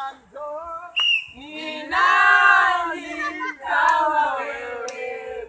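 Raised voices of several people, loud and overlapping, with long held, wavering calls.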